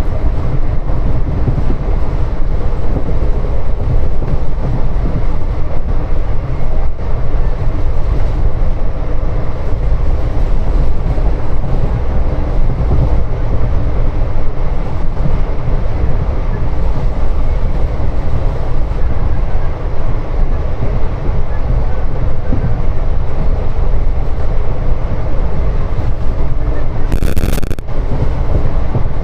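Passenger train hauled by twin WDP4 diesel locomotives running at speed, heard from on board: a loud, steady rumble of wheels on the track and running gear. A brief rushing noise comes near the end.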